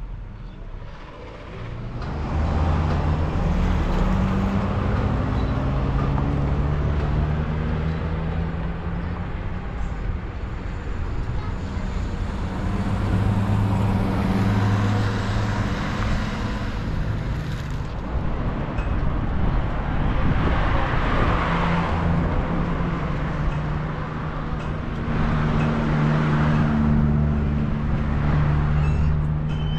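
Car engine and road noise of a car being driven, the engine note stepping up and down in pitch as it speeds up and changes gear. It gets louder about two seconds in.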